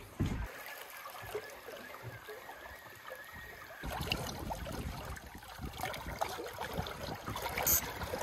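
Water lapping and trickling against the hull of a small boat, with light splashes and knocks; it grows louder and busier about four seconds in.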